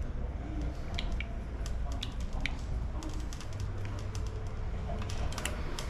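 Scattered light clicks and taps of small bicycle parts and tools being handled, over a steady low hum.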